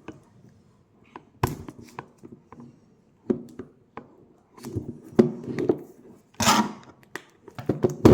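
Packaging being opened by hand with scissors: scattered clicks and knocks with bouts of rustling, and a longer rustle or tear about six and a half seconds in.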